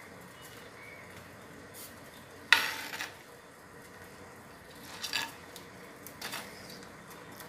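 A spoon stirring gravy and knocking against an earthenware clay pot: one sharp clink about two and a half seconds in that rings briefly, then softer knocks around five and six seconds.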